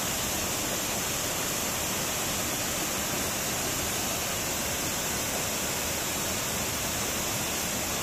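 Steady rush of a mountain stream pouring in small waterfalls over boulders.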